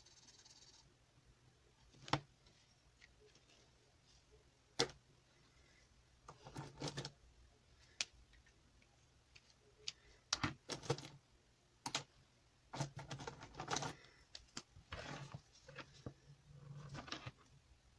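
Felt-tip markers being handled: sharp single clicks of caps snapping on and off, and short bouts of clatter as pens are picked through in the marker case.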